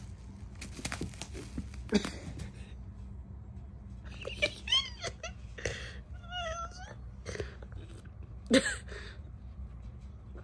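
A cat and kitten play-fighting: a few light knocks and scuffles, then several short meows and chirps with bending pitch, one wavering, and a louder call near the end.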